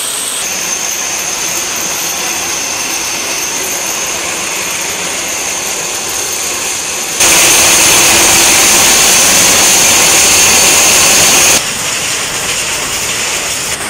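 Steady mechanical noise of saree-weaving machinery running: thread winding machines and a power loom. It jumps louder about seven seconds in and drops back abruptly about four seconds later.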